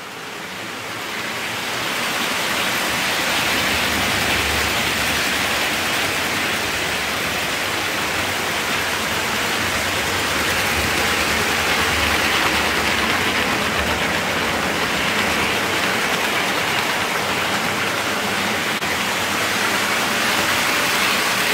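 Hattons Originals OO gauge Class 66 model locomotive running on its track: a steady whirring rush from its five-pole motor and wheels on the rails, building up over the first two seconds and then holding steady.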